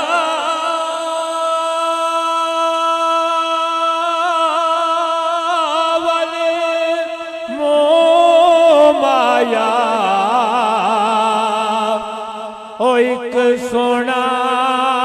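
A man singing a Punjabi naat, drawing out long held notes that waver in pitch. The melody moves to a new note about halfway through, and the voice drops away briefly near the end before picking up again.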